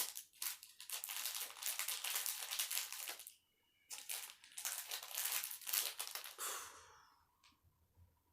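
Knife packaging being unwrapped by hand: crinkling and crumpling in two spells of about three seconds each, with a short pause between them.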